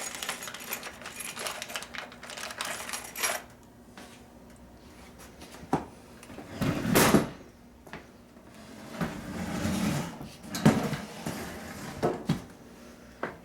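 Small metal hardware clinking and rattling, then a few knocks and short scraping rubs as mounting bolts are worked into an over-the-range microwave's mounting holes.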